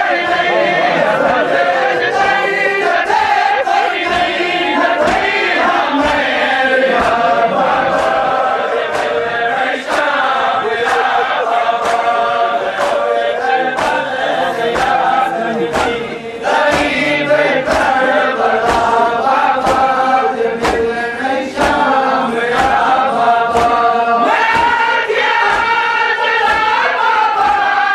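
A crowd of men chanting a mourning lament (noha) together in sung lines, with a steady beat of sharp strikes from hands beating on chests (matam).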